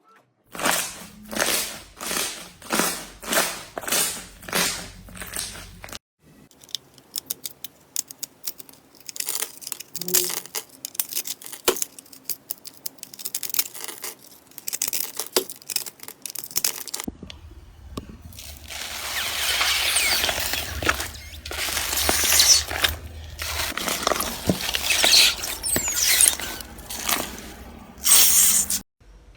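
Slime being squeezed and pressed by hands. First come rhythmic squishes about twice a second, then sparse crackling pops, then a louder stretch of continuous squishing and crackling.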